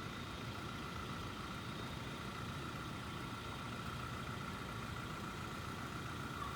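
A vehicle engine idling steadily, a low hum with a faint steady whine over it.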